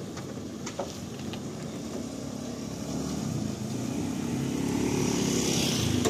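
Motor vehicle engine running: a low rumble that grows steadily louder through the second half, with a couple of light clicks about a second in.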